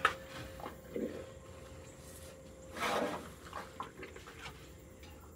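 Asian elephant puffing breath through its trunk about three seconds in as it takes fruit from a hand, with a sharp click at the start and a few soft knocks and snuffles around it.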